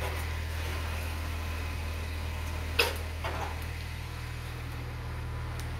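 Steady low mechanical hum, with one sharp knock a little under three seconds in and a fainter one about half a second later.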